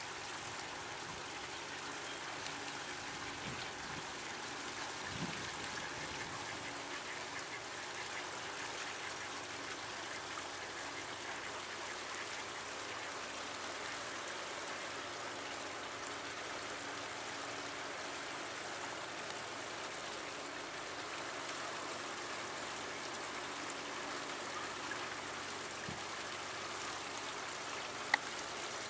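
Steady rush of running stream water, with occasional soft mallard calls. A single sharp click near the end.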